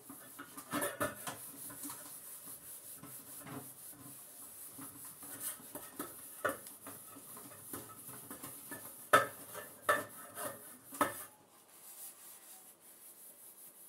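A sponge scrubbing a metal teapot with cream cleaner at a kitchen sink, with several sharp metal clinks as the pot knocks about, the loudest about nine seconds in. The scrubbing dies down about eleven seconds in.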